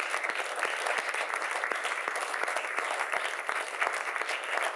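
A roomful of people applauding, many hands clapping at a steady level.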